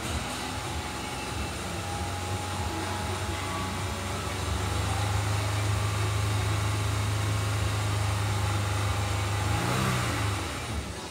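Toyota Aurion's 3.5-litre V6 revved in Park: the engine speed climbs to around 4,000 rpm and is held steady for several seconds, then drops back near the end.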